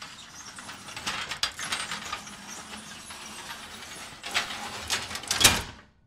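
Sliding metal gate being rolled along its track: a continuous rattling roll with a few clanks about a second in, and several more near the end, the loudest clank just before it stops.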